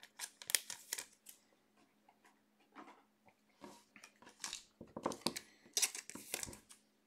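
Trading cards and their plastic holders and wrappers being handled on a tabletop: scattered rustling, crinkling and light clicks, busiest about five to six seconds in, over a faint steady electrical hum.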